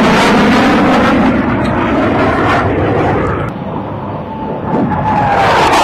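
Dassault Mirage III fighter jet making a fast low pass, its single turbojet giving a loud roar. The roar eases about three and a half seconds in, then swells again with a whine that drops in pitch near the end as the jet goes by.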